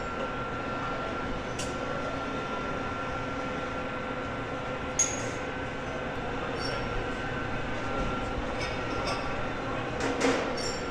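Steady hum of a car assembly hall with a few sharp metallic clicks and clinks. The loudest click comes about halfway through.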